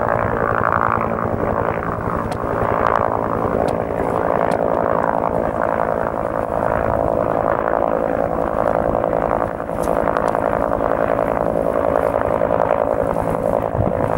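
Firefighting helicopter flying overhead: a loud, steady, fast rotor chop with steady engine tones beneath it.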